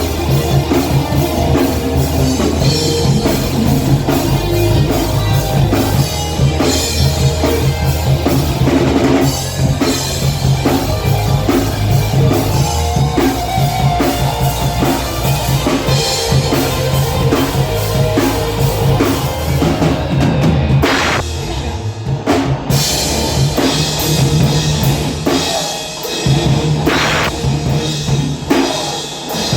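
Live rock band playing: a drum kit pounds a driving beat under distorted electric guitar and bass, with a short break in the drumming about two-thirds of the way through.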